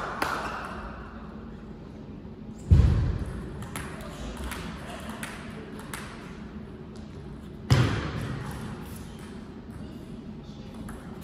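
Table tennis ball ticking on the table and rackets during serve and rally, the clicks echoing in a large hall, with two heavy thuds about three and eight seconds in.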